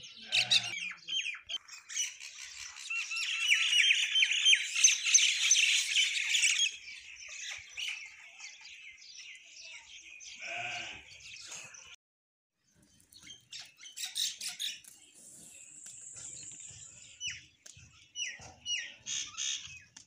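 House sparrows and common mynas chirping and calling as a flock. The chirping is dense and overlapping for the first several seconds, thins out, stops briefly about twelve seconds in, then comes back as scattered chirps.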